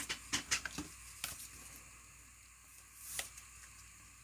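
Trading cards and their plastic holders being handled on a table: a quick run of light clicks and taps in the first second or so, then a single soft slide of card or plastic about three seconds in.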